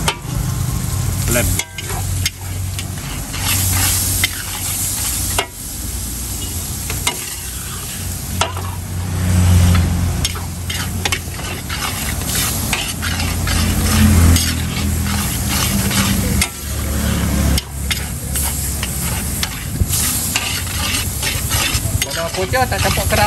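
Metal spatula scraping and clanking against a blackened wok as noodles, bean sprouts and sauce are stir-fried, with the food sizzling throughout. A steady low hum runs underneath.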